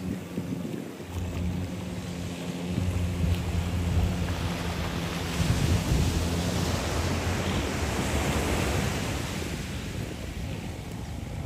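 Surf washing on a sandy beach, with wind buffeting the microphone. There is a low, steady engine hum through the first half, and the wash grows louder about halfway through.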